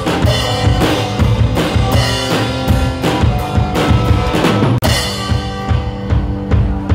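Live rock band playing without vocals: a drum kit keeps a steady beat under electric guitars and bass. The sound drops out for an instant about five seconds in, then the playing carries on.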